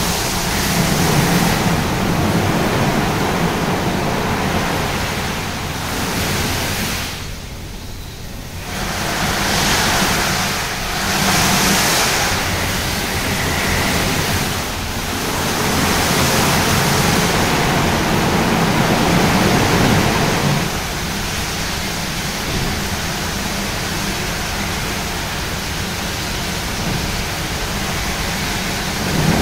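Rotating wash brushes of a Tammermatic T700 automatic car wash scrubbing a car amid running water: a steady rushing noise that drops away briefly about seven seconds in and eases slightly about twenty seconds in.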